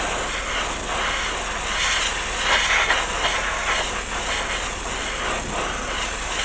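Airbrush spraying paint, a steady hiss of compressed air that swells slightly a couple of seconds in.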